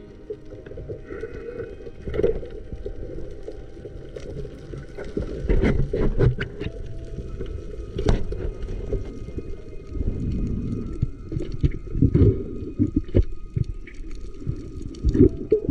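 Muffled underwater sound: a low rumble of moving water with scattered knocks and clicks.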